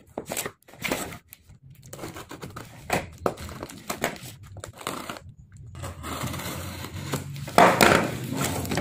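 Plastic wrapping and packing tape on a large parcel crinkling and rustling as it is pulled and torn open, in irregular bursts, loudest near the end.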